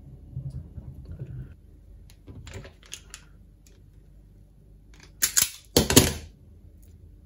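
Automatic wire stripper at work on coaxial cable: quiet handling and small clicks, then two loud, short snaps of the tool about half a second apart, around five seconds in.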